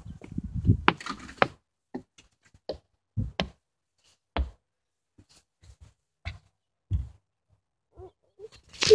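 Irregular knocks and bumps, a dozen or so short thumps spaced unevenly with quiet gaps between them: handling noise from a phone camera being carried and jostled.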